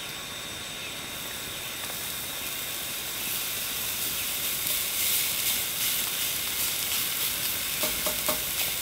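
Top sirloin steak sizzling on a hot grill, a steady hiss dotted with crackles that grows louder a few seconds in.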